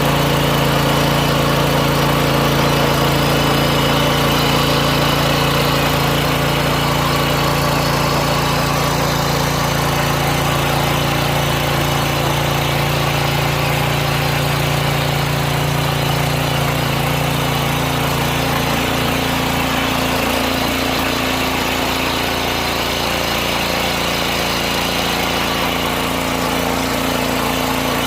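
Mini tiller's small engine running steadily as it ploughs soil, its note shifting slightly about two-thirds of the way through.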